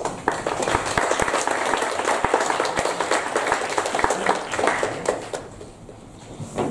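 Small audience applauding, many hands clapping together; the applause dies away about five and a half seconds in.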